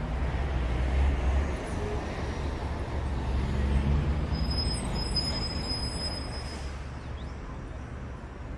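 Road traffic rumbling, swelling as vehicles pass about a second in and again around four seconds, with a thin, steady high-pitched tone lasting about two seconds in the middle.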